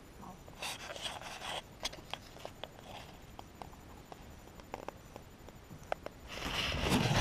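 Faint rustling and rubbing with scattered light clicks and taps, building to louder rubbing near the end: handling noise from a small camera being moved about inside a fabric playpen.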